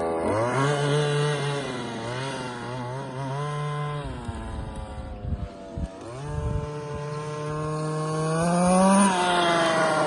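Zenoah 23 cc two-stroke petrol engine with a tuned pipe in a large-scale FG Formula 1 RC car, revving up and down as it laps. Around four seconds in it drops off throttle and runs unevenly at low revs, then climbs steadily to a peak near nine seconds and falls away.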